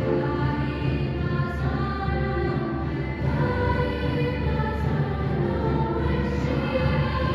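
Choir singing slow chords that change about every second and a half.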